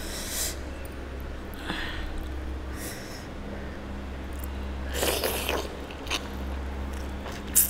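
A few short breathy puffs and mouth noises over a piece of very hot mutton curry held up by hand, then biting into it, the loudest burst about five seconds in.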